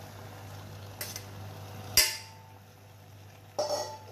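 Metal bowl knocking against the rim of a pressure cooker as chopped tomatoes are tipped in: a light knock about a second in, a sharp ringing clank about two seconds in, then a shorter clatter near the end.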